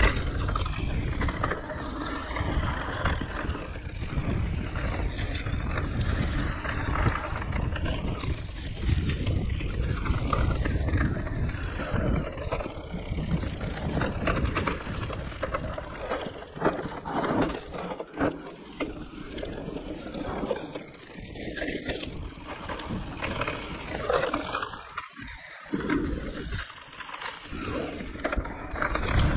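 Giant Reign E+ enduro e-mountain bike ridden down a rough trail: tyres rolling over roots and stones, with the bike rattling and knocking over a low rumble. The noise eases briefly twice, about two-thirds of the way in and again near the end.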